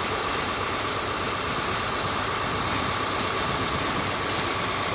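Steady train noise in a large railway station: an even rumble with a constant mid-pitched whine, as a Class 700 electric multiple unit runs in.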